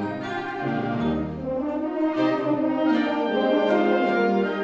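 Concert band playing sustained chords, brass to the fore. The deep bass notes drop out about two seconds in, leaving the middle and upper parts holding the chord.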